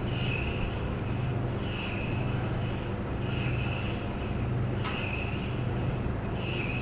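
Clothes dryer running: a steady low hum with a higher-pitched sound that comes round about every one and a half seconds as the drum turns, and a few sharp ticks, the loudest about five seconds in.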